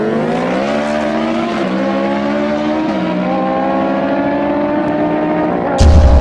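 Engine accelerating through the gears: its pitch climbs, dips slightly at two upshifts, then climbs again. Near the end a loud, deep boom with a short whoosh cuts in over it.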